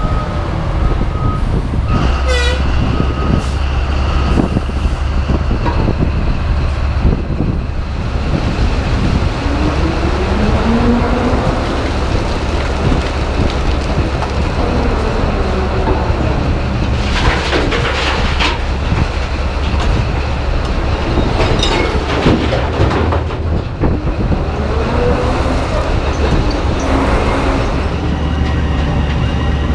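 Heavy mining machinery at work: the big diesel engine of an ore haul truck runs with a steady deep drone. Over it come whines that rise and fall in pitch, a few chirps, and bursts of clanking and rattling from the loading rope shovel and its load.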